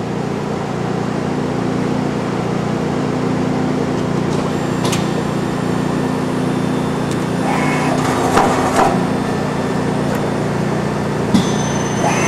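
1988 Okuma LB9 CNC slant-bed lathe running through a machining cycle: a steady mechanical hum with a few sharp clicks about five and eleven seconds in.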